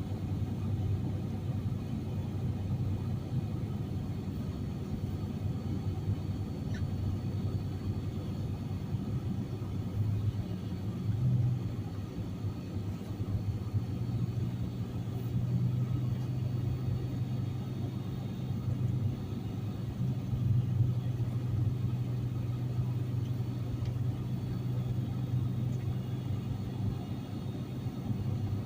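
Inside a moving vehicle's cab: steady engine and road rumble, with the heater blowing. The engine's low note rises a little about twelve seconds in and holds.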